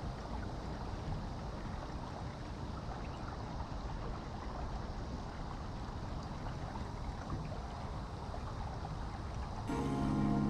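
Steady rush and trickle of water along a sailing kayak's hull as it moves. Music comes in near the end.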